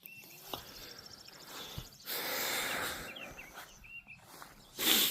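Outdoor ambience with small birds chirping now and then and a soft rush of noise about two seconds in. Near the end comes a short, loud sniff through the nose.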